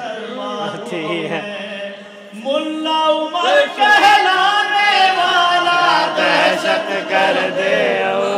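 A man chanting an Urdu manqabat, a devotional poem, in a loud, melodic recitation with gliding, long-held notes. The voice rises sharply in loudness about two and a half seconds in.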